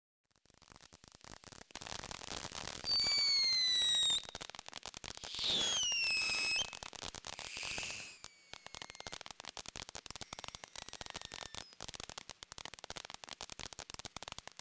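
Consumer fireworks going off: dense crackling throughout, with two whistles of about a second each, both falling in pitch, a few seconds in.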